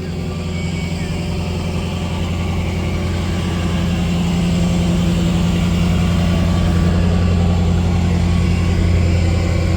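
A car engine idling steadily with a deep, even note, growing gradually louder throughout.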